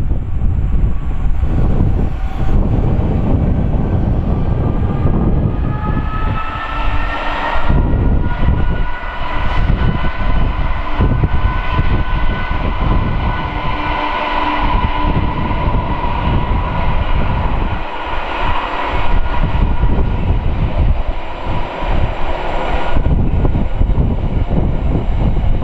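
Train passing at the station: a steady low rumble with a whine of several tones that rises in pitch from about four seconds in, is loudest around the middle, and fades near the end.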